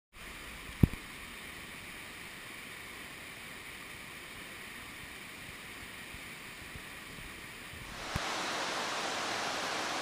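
Steady rush of a waterfall and heavy rain, with a single low thump about a second in. About eight seconds in, the rushing turns louder and fuller.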